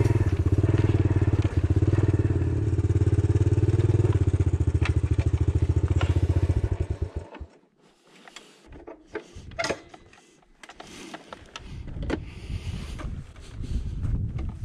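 Honda CT110 Postie bike's single-cylinder four-stroke engine running steadily, then switched off about seven seconds in, its firing slowing to a stop. After it stops there are scattered light clicks and knocks.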